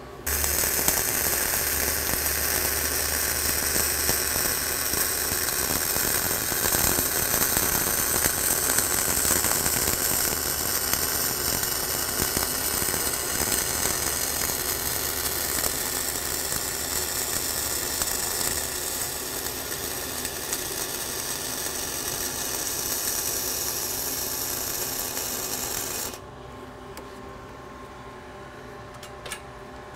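Flux-core wire-feed arc welding overhead on a beveled steel plate: the arc runs steadily through one continuous pass along the toe of the previous weld, then cuts off suddenly near the end.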